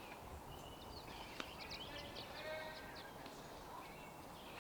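Birds chirping faintly, with short high notes and a quick trill, and a single sharp click about a second and a half in.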